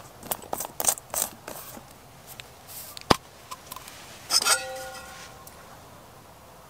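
Several small plastic clicks as a squeeze bottle's cap is handled, a sharp tap about three seconds in, then about four and a half seconds in a clank of a metal camping pot that rings for about a second.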